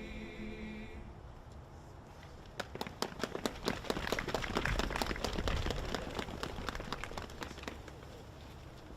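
A group's held sung chord ends about a second in, then a crowd applauds for several seconds, thinning out near the end.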